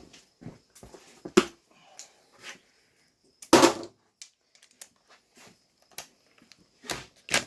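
Scattered metallic clicks and knocks of hand tools and transmission parts being handled during disassembly, with two louder sharp knocks, one about a second and a half in and one about halfway through.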